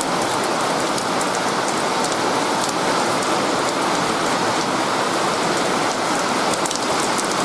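Steady rain shower falling, an even hiss with many individual drops ticking close by.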